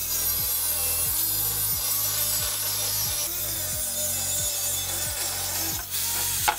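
Angle grinder with a cutoff disc cutting through a square steel tube, a steady high-pitched grinding hiss. Background music with a steady beat plays underneath.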